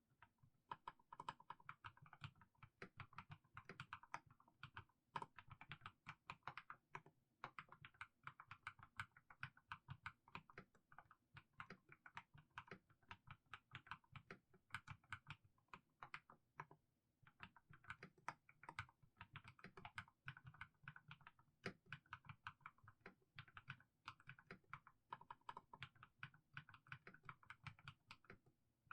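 Mechanical keyboard with fully lubed Haimu Sea Salt switches being typed on slowly: a quiet, continuous stream of keystroke clacks, pausing briefly twice.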